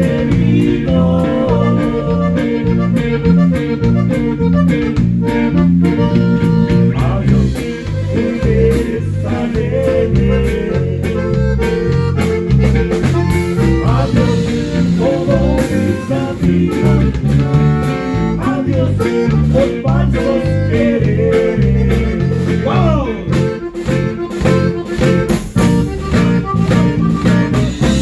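Live band music with a steady beat and a repeating bass line.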